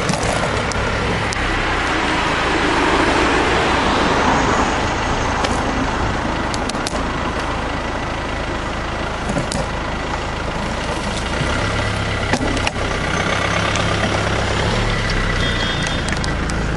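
Steady street-traffic noise with a low motor-vehicle rumble, heard from a bicycle riding alongside the road, with a few short clicks and knocks.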